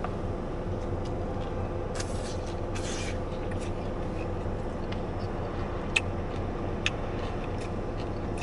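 Steady low hum inside a parked car's cabin, with short soft noises from eating a burger about two and three seconds in and two sharp clicks near the end.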